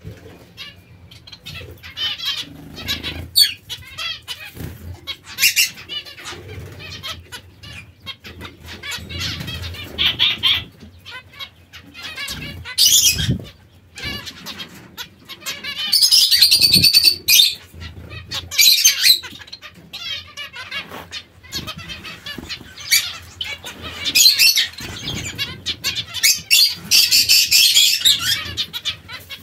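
Zebra finches bathing in a shallow water dish: bursts of wing flapping and splashing, several times over, with short chirping calls and small clicks in between.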